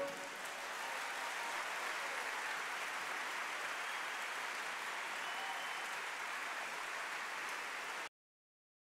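Large audience applauding, an even wash of clapping that follows the band's last chord. The applause cuts off abruptly near the end.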